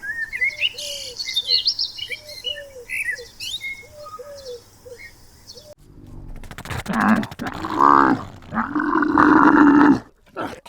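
Small birds chirping, with a low, arching call repeated in groups of two or three. About six seconds in there is an abrupt change to a large animal calling loudly in several long, pitched cries.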